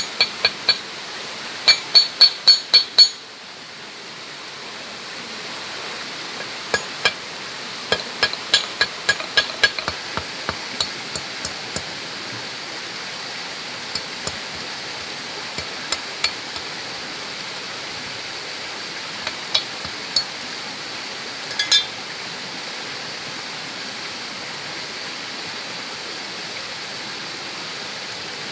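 Steel knife blade striking wire laid on a claw hammer's head used as an anvil, shaping wire into a fishhook: clusters of sharp, ringing metallic clinks, the loudest a quick run of six a couple of seconds in, then scattered taps that stop a little past two-thirds through. A steady rushing noise runs underneath.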